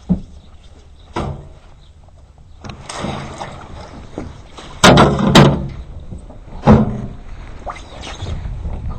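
A series of knocks and thumps with handling noise between them, the loudest a close pair about five seconds in and another sharp knock shortly after.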